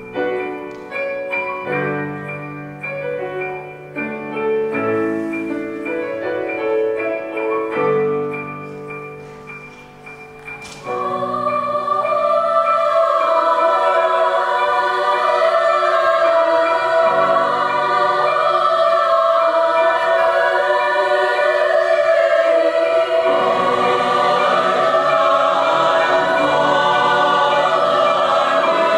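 Mixed choir with piano accompaniment. A quiet passage led by the piano, then about eleven seconds in the full choir comes in singing, much louder, with the piano under it.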